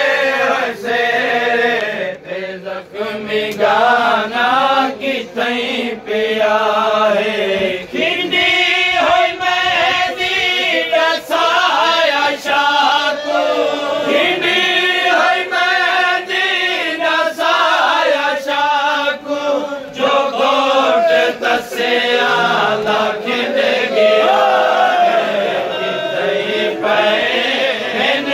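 A crowd of men chanting a noha, a Shia mourning lament, together in a loud group voice, with sharp slaps keeping a regular beat.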